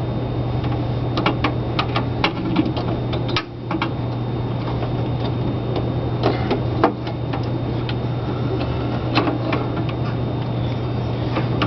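Irregular clicks and light rattles of a screwdriver and wire against a metal breaker panel box as a ground wire is fastened to the ground bus, over a steady low hum.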